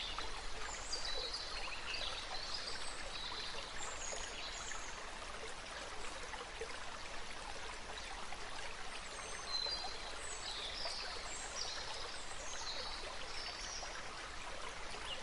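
Steady rush of flowing water, with scattered short high chirps over it, thickest about a second in and again from about ten seconds in.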